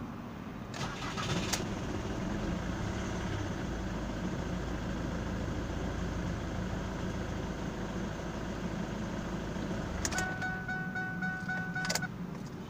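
Ford Mondeo Mk3 2.0 TDCi (D6BA) common-rail diesel starting after its injectors were replaced and repaired, heard from the cabin: a short crank about a second in, a quick catch, then a steady idle at about 1000 rpm. About ten seconds in the engine stops with a click, and a dashboard warning chime beeps rapidly for about two seconds before a second click.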